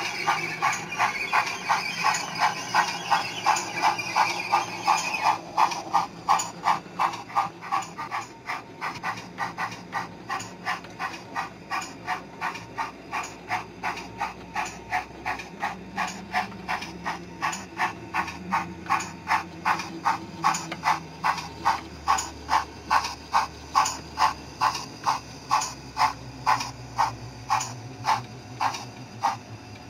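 Sound-decoder steam chuffing from an O gauge model pannier tank locomotive: a steady beat of hissing exhaust chuffs, roughly two and a half a second, with a higher hiss over it for the first five seconds.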